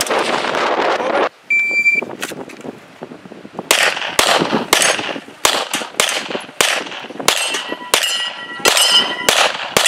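Wind rushing on the microphone, cut off about a second in; then a shot timer's short high beep and a string of rapid handgun shots, roughly two a second, with steel plate targets ringing after hits.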